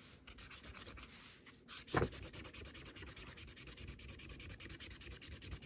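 Marker scribbling on paper in rapid back-and-forth strokes, the tip of a marker that is drying out, with one short knock about two seconds in.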